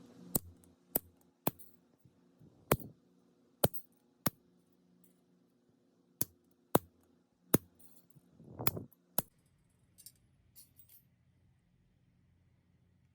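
A series of sharp, separate metallic clicks, about a dozen spaced irregularly every half second to a second from hand tools working small brass or copper fittings, with a softer scraping sound just before the last one.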